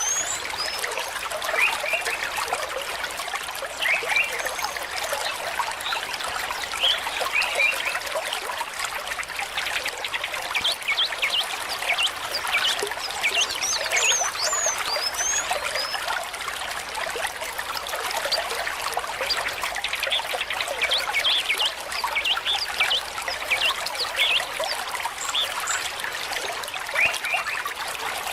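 Water trickling steadily, with a few short, high bird chirps near the start, about halfway through, and near the end.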